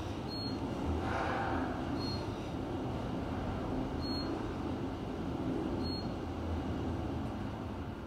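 Kone glass elevator car riding upward: a steady low rumble of the moving car, with a short swell of hiss about a second in.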